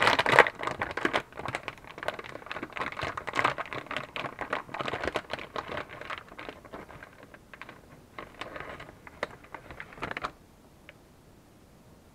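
Plastic anti-static bag crinkling and rustling as a graphics card is handled and slid out of it. The crackling thins out and stops about ten seconds in.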